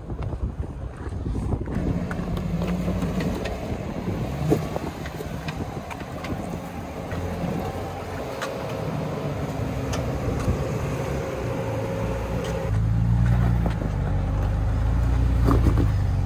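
Jeep Wrangler engines running at low crawling speed as the Jeeps climb over slickrock, with a few sharp clicks scattered through. The engine sound grows louder and deeper about four-fifths of the way in.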